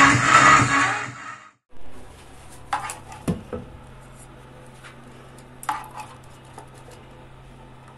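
Electronic music that cuts off after about a second and a half, followed by a steady low hum with a few sharp clicks and knocks, two close together around the middle and one later.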